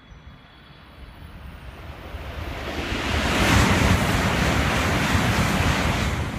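Shinkansen bullet train passing straight through a station at close to 300 km/h: a rush of air and wheel noise that swells over about three seconds, stays loud, then falls away near the end as the last car goes by.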